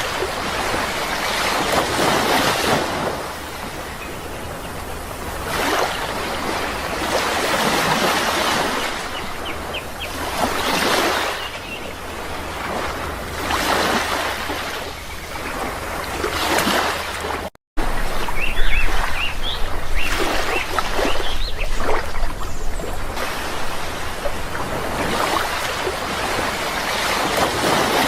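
Sea waves breaking and washing up, the surf swelling and fading every few seconds. A brief cut to silence comes a little past halfway, after which the surf is somewhat louder.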